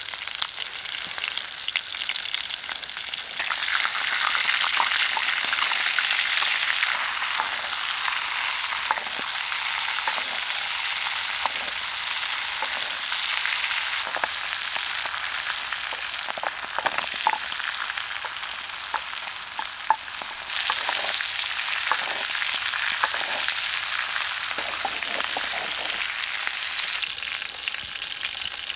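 Food frying in a pan: a steady sizzle with scattered pops, growing louder a few seconds in and again about two-thirds of the way through.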